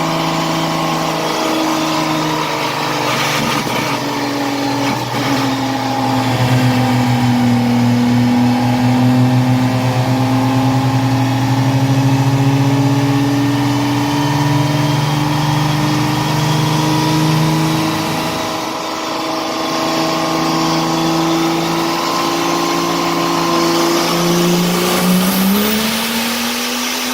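Diesel engine running hard under load on a dyno, held at near-steady revs, with its pitch sagging slightly partway through and climbing sharply near the end.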